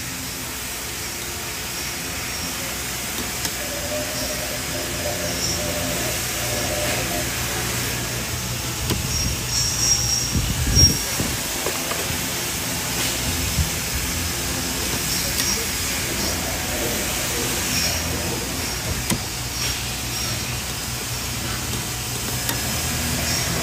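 Machine-shop ambience: a steady hum and hiss of running machinery, with a few light knocks about halfway through.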